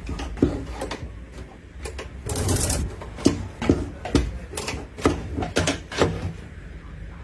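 Clothes hangers sliding along a wardrobe rail and knocking together in irregular clicks, with a brief swish of fabric about two and a half seconds in.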